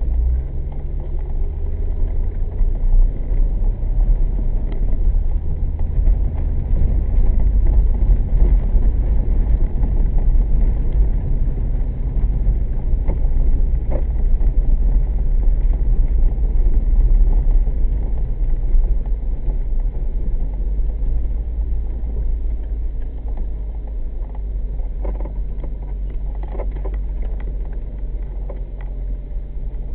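1998 Corvette C5's LS1 V8 and road rumble heard from inside the cabin while cruising: a steady, deep drone that swells slightly and then eases off toward the end.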